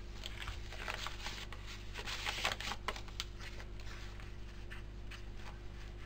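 Paper rustling and sliding as hands handle a coffee-dyed paper envelope and loose paper ephemera: a run of short scratchy rustles, busiest about two to three seconds in, over a faint steady hum.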